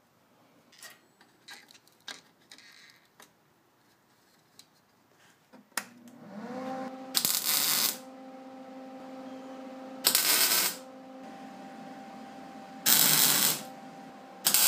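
Faint clicks of steel flat bar and clamps being handled. About six seconds in, a steady hum comes on, followed by three short crackling bursts, each under a second: a wire-feed welder laying tack welds on 1/8-inch steel flat bar. A fourth tack starts at the very end.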